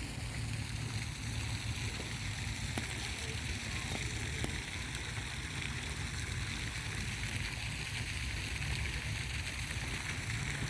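Moving water rushing steadily, with a low rumble underneath and a few faint ticks and splashes.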